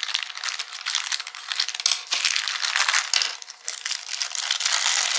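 Thin clear plastic bag crinkling as it is handled, a continuous run of crackles with a few sharper clicks.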